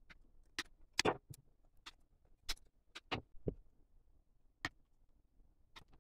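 About a dozen sharp, irregularly spaced clicks of hard plastic as parts of a Bandai Perfect Grade Zeta Gundam model kit are handled during assembly, the loudest about a second in.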